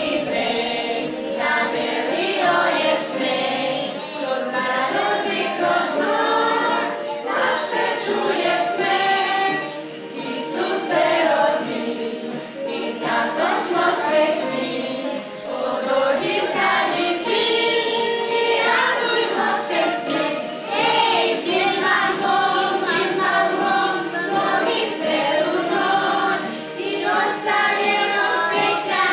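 Children's choir singing together with women's voices, one song running continuously.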